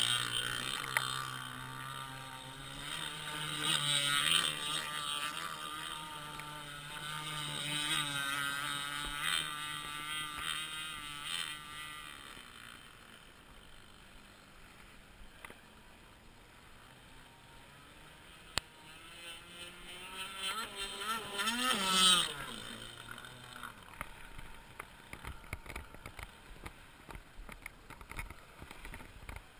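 Petrol-engined radio-controlled model speedboat running on the water, its engine note wavering up and down as it is throttled. It fades to a faint drone for several seconds, then rises sharply in pitch and loudness about two-thirds of the way through and drops away again.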